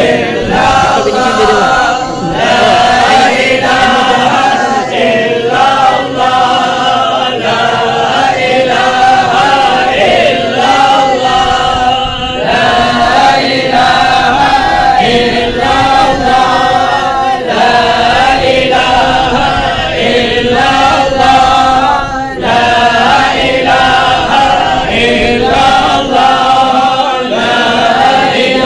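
Group of men chanting an Arabic devotional mowlid recitation together in unison, a continuous sung chant with brief breaks between phrases.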